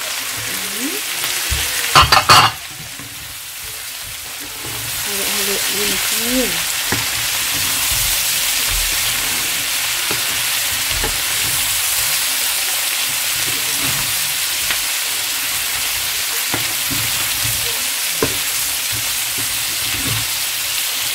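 Fried chicken cubes and sautéed bell peppers sizzling in a frying pan, with a brief clatter about two seconds in as the chicken goes in. The sizzle then grows louder and holds steady while a wooden spoon stirs, with a few light knocks of the spoon on the pan.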